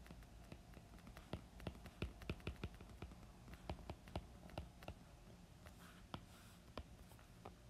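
Stylus tip tapping and ticking on a tablet's glass screen during handwriting: a string of faint, irregular clicks over a low steady hum.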